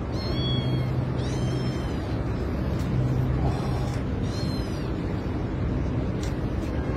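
A kitten meowing three times, short high-pitched cries that rise and fall, over a steady low rumble.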